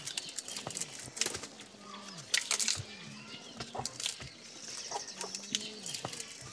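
Chickens clucking in low, drawn-out notes that drop at the end, with scattered light clicks and knocks. A small bird trills high about five seconds in.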